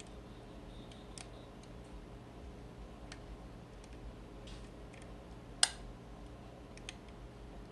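Faint, scattered metallic clicks of a hook pick working the levers inside a vintage four-lever mail padlock under tension, with one sharp, louder click a little past halfway.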